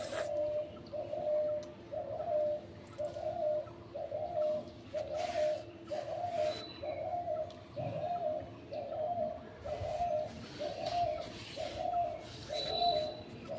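A bird calling the same single note over and over at an even pace, about three calls every two seconds.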